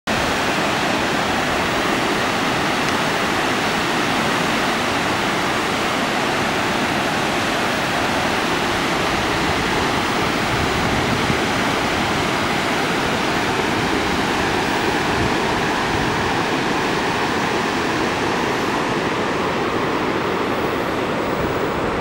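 Waterfall: a steady, even rush of water spilling in small cascades over flat rock ledges.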